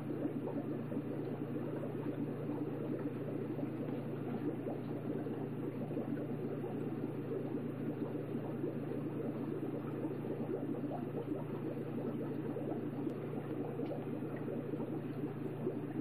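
Aquarium water bubbling steadily, with a low steady hum beneath.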